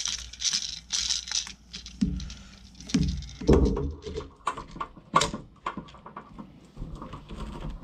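A vacuum hose and a DeWalt DWV9000 quick-connect dust adapter being twisted and pushed together by hand: irregular plastic clicks, taps and scraping, with a few sharper knocks in the middle.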